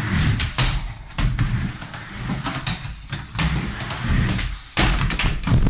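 Skateboard riding a wooden mini ramp: a low rolling rumble of the wheels on plywood, broken by several sharp clacks and thuds as the board and trucks hit the ramp and its metal coping.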